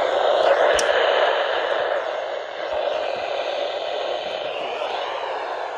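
Steady hiss of radio static from a weather radio receiver on a weak signal, with a sharp click about a second in.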